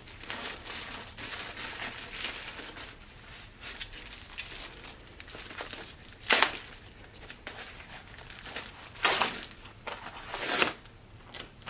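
Clear plastic wrap being handled and pulled off a leather bucket bag, rustling throughout. There are three louder rustles, about six, nine and ten and a half seconds in.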